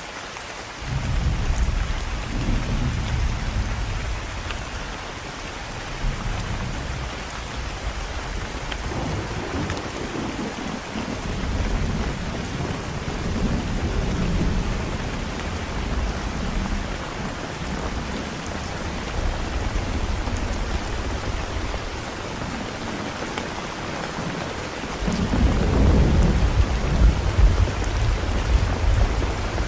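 Steady rain with rolling thunder. Low rumbles swell about a second in and again around the middle, and the strongest comes near the end.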